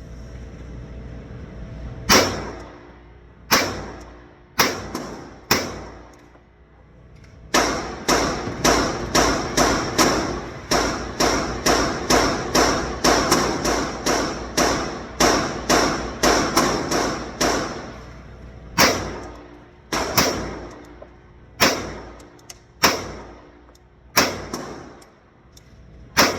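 Gunshots. First a few single shots about a second apart, then a fast string of roughly two shots a second for about ten seconds, then slower single shots again.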